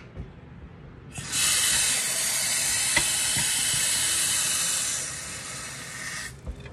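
Water running from a tap for about five seconds, a steady hiss that starts about a second in and cuts off near the end.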